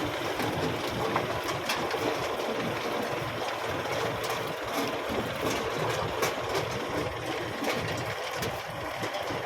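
Potato harvesting machine running: a steady engine sound with a light, rattling clatter of the machine.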